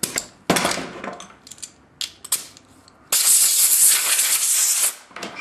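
A few light metallic clicks and taps of handling the aluminium wing parts, then a loud steady hiss of compressed air from a pneumatic tool for about two seconds, cutting off sharply.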